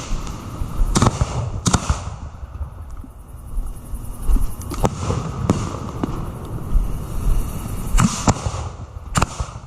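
Professional fireworks display going off close by: irregular sharp bangs of shells, about half a dozen loud ones with two in quick succession near the end, over a continuous low rumble and crackle of other shots.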